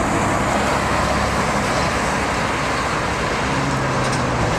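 Steady road-vehicle noise: a dense rush with an engine hum underneath that grows a little stronger near the end.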